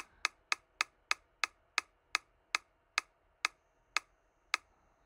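Mystery-box spinner sound effect from a website: a tick each time an item slides past the marker as the reel spins down. The ticks start about four a second and slow steadily to roughly one every half second.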